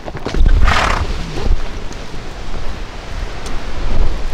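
Wind and movement noise rumbling on the camera's microphone during a ride on horseback, with a short breathy rush about half a second in and a few faint clicks.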